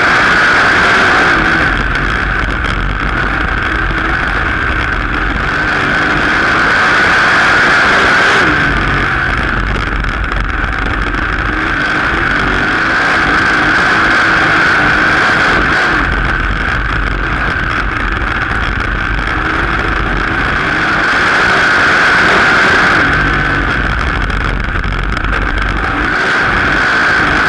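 Race car engine running hard at racing speed, heard from an on-board camera in the cockpit. Its loudness swells and eases back every several seconds.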